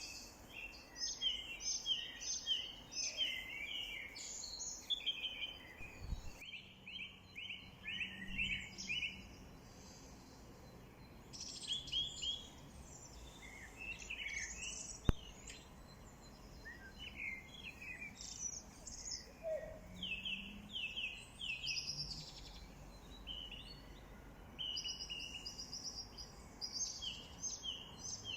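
Several small songbirds chirping and singing in quick runs of short repeated notes over a faint steady outdoor hiss. One sharp click comes about halfway through.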